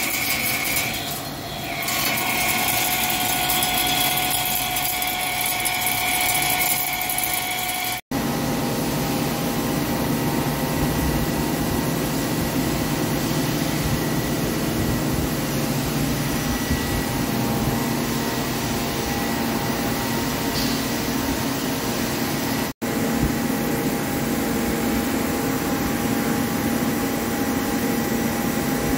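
Heavy CNC lathe turning a forged steel spindle with flood coolant: a steady cutting noise carrying several high steady tones. After about eight seconds it changes abruptly to a lower, rougher steady machine running noise.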